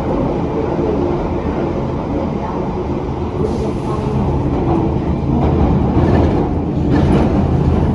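Bakerloo line tube train (1972 Stock) running, a steady loud rumble of wheels and motors that grows a little louder in the second half.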